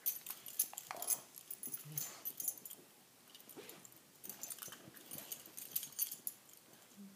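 Rhodesian Ridgeback and Jack Russell puppy play-fighting: irregular scuffling and many sharp clicks, with a few brief dog vocal sounds.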